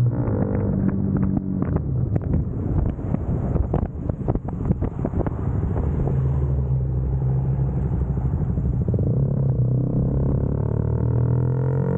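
CFMoto 300SS single-cylinder engine running as the bike slows down, with wind buffeting the microphone in the first half. The engine then settles into a steady low note and rises in pitch near the end as the bike accelerates again.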